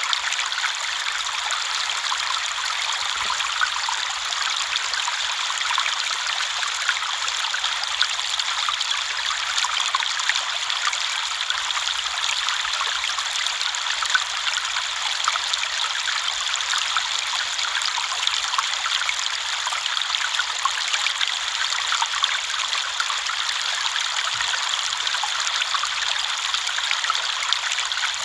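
River water flowing over stones in a steady, even rush with fine trickling and splashing, bright and light with almost no low rumble.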